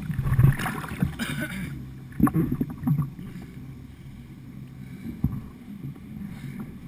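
Kayak on a flooded river: water splashing and a few irregular knocks against the boat, busiest in the first three seconds.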